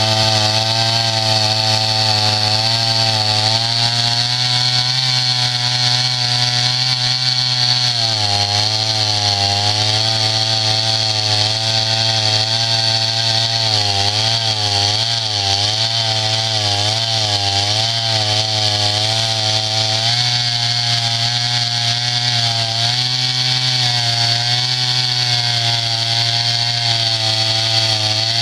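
Norwood portable sawmill's gas engine running continuously. Its pitch drops and wavers for about twelve seconds through the middle, then rises back to its earlier steady speed.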